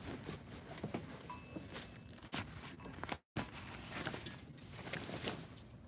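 Footsteps on concrete with light scuffing and handling noise, a scatter of soft irregular clicks; the sound cuts out completely for a moment a little over three seconds in.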